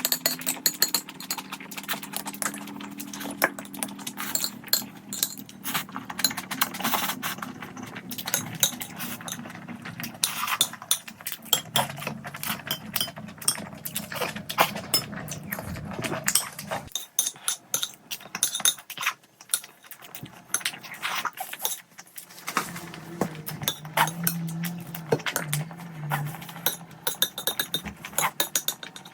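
Close-up eating sounds: continual wet mouth clicks of chewing and slurping, with frequent light clinks of utensils against dishes.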